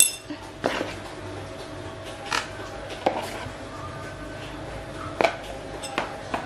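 About half a dozen sharp clicks and knocks of a utensil against a plastic bowl and plate as whipped cream is scooped out onto a crepe cake layer, over a faint steady hum.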